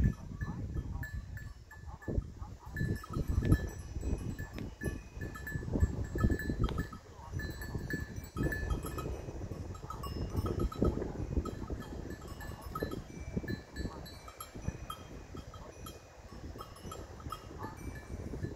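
Peacock goat grazing, with irregular ripping and crunching as it crops grass, and a bell tinkling on and off.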